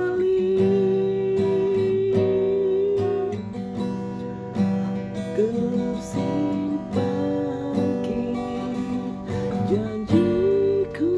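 Acoustic guitar strummed in chords under a sustained melody line that slides between notes.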